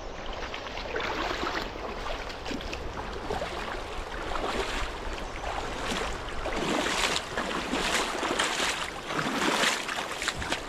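Bare feet wading through a shallow, stony river, splashing with each step about once a second over the steady rush of the flowing water.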